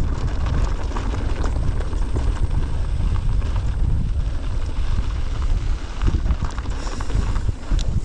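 Mountain bike riding down a rough trail: wind buffeting the camera microphone over a low rumble from the tyres, with constant rattling knocks and clicks from the bike over rocks and roots.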